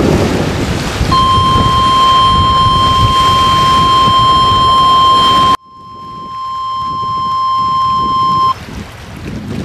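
Wind buffeting the microphone, then about a second in a NOAA Weather Radio warning alarm begins: one steady high tone held for about seven seconds. The tone marks a severe weather warning about to be read out. The wind noise cuts out suddenly midway while the tone carries on.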